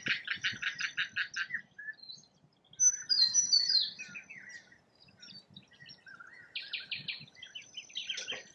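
Birdsong: a fast run of repeated chirping notes, about seven a second, then a few louder, sharp whistled notes that fall in pitch, and more rapid chirping runs near the end.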